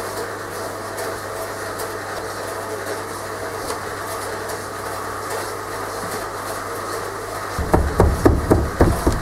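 Steady background noise of metal being cut up for scrap, with a low mains-like hum. Near the end, a quick run of dull thumps as moulding sand is packed by hand into a wooden flask.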